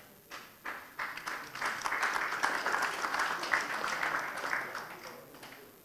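Audience applause: a few single claps, swelling about a second in into dense clapping, which dies away near the end.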